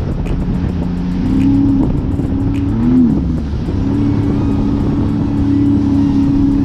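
Jet ski engine running under way, its pitch dipping and climbing back briefly about three seconds in.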